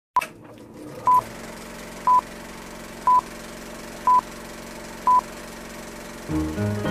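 Film-leader countdown beeps: five short, single-pitched beeps one second apart over a faint steady hum, with music starting just before the end.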